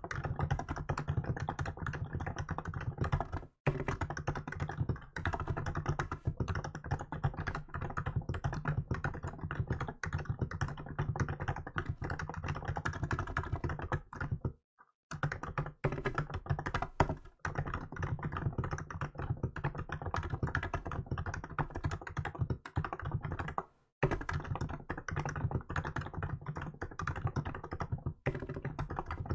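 Fast, continuous typing on a Hansung GK868B electro-capacitive (non-contact) keyboard: a dense run of keystrokes broken by short pauses about three and a half, fifteen and twenty-four seconds in, with one louder keystroke around seventeen seconds.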